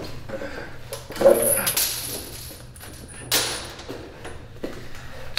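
Staged fight: short grunts and cries mixed with several sharp hits, the loudest strike about three seconds in.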